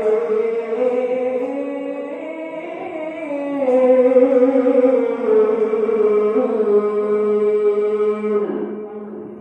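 A male qari's high voice chanting Quranic verses (tilawah) into a handheld microphone, in long drawn-out melismatic notes that bend slowly up and down. The phrase trails off near the end.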